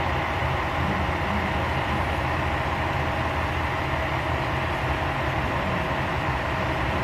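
Kyoto Tango Railway KTR8000 diesel railcar standing with its engines idling: a steady low running sound with a constant hum over it.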